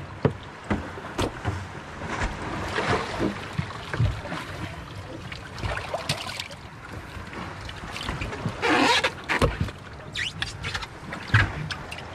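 Irregular knocks and thumps with a few brief rushing, scraping washes: things being handled and set down aboard a small fishing boat.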